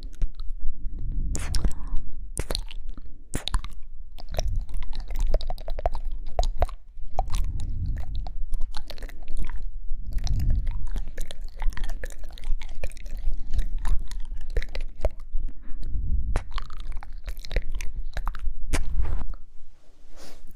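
Close-miked ASMR mouth sounds: wet clicks, smacks and tongue pops coming in irregular clusters, with soft low rumbles between them.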